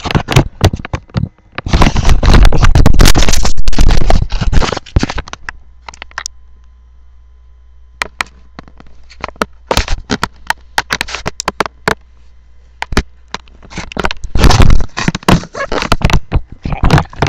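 Handling noise from a webcam being grabbed and swung about: loud rubbing and scraping against its microphone in two long stretches, with scattered knocks and clicks between them.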